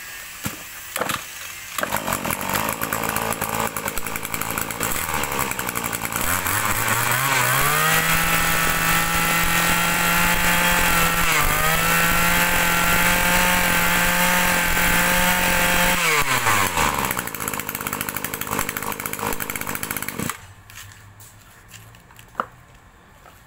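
A Maruyama (BIGM) brush cutter engine starts about two seconds in and idles. It then revs up and holds at high speed for about eight seconds with one brief dip, drops back to idle, and cuts off suddenly near the end. It is running strongly.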